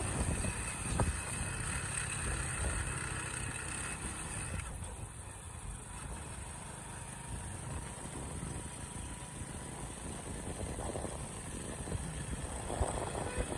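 Hero Splendor motorcycle's single-cylinder four-stroke engine running steadily while riding, heard from the rider's seat with road and air noise. It goes a little quieter from about five seconds in.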